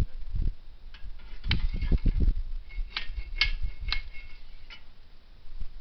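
A handful of sharp metallic taps and clicks, the later ones leaving a brief ring, as of metal knocking on metal while the cannon is handled. A low rumble of handling or wind noise runs under the first half.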